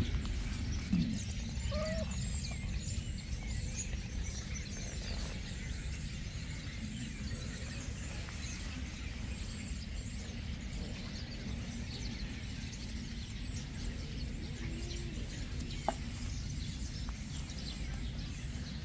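Outdoor park ambience: small birds chirping faintly over a steady low rumble, with a single short click near the end.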